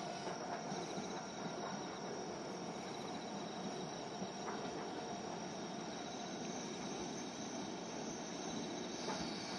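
Insects, likely crickets, chirping in steady pulsing trills over the low, steady running of a Shimabara Railway diesel railcar train drawing in slowly.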